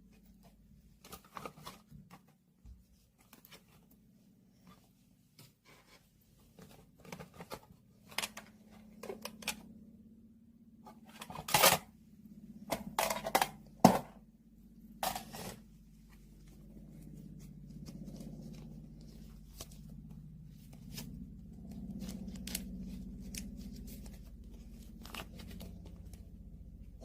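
Close handling noises: a scattering of crisp clicks, scrapes and snips, loudest around the middle, over a low rumble that grows in the second half.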